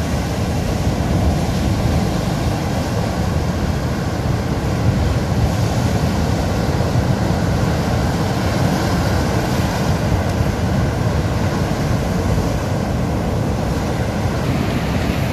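Ocean surf breaking and washing over a sandy, rocky beach, with wind buffeting the microphone in a steady low rumble.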